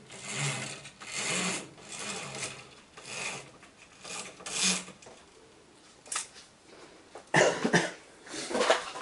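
Irregular rubbing and rustling swishes, each under a second long, with a short click about six seconds in and louder scuffs near the end.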